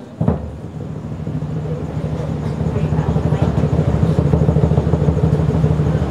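Large drums played in a fast, low roll, opened by one sharp strike and growing steadily louder.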